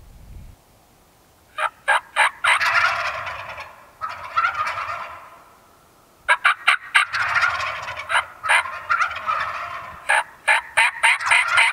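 Several young wild turkey gobblers (jakes) gobbling close by, again and again, in three rounds. Each round opens with a quick run of short, sharp calls that the gobbles follow.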